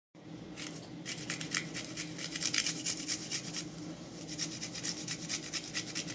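Garlic clove being grated on a small metal box grater: quick rasping strokes, several a second, with a brief pause a little past the middle, over a faint steady hum.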